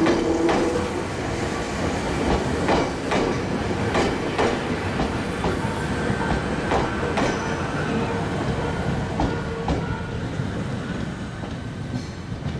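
Ohmi Railway 820 series electric train (rebuilt ex-Seibu 401 series) running past, its wheels clacking over the rail joints in an uneven string of sharp clicks over a steady rumble. The sound fades as the train draws away.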